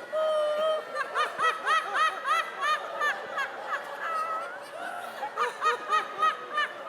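A person laughing loudly in rhythmic ha-ha pulses, about three a second, after a long drawn-out cry at the start: the 'holy laughter' of a charismatic revival meeting.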